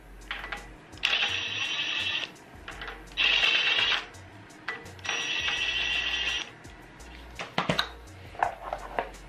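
Cordless impact wrench hammering on the pulley bolt at the front of a Toyota 2JZ engine in three runs, each one to one and a half seconds long, followed by a few small clicks, over background music.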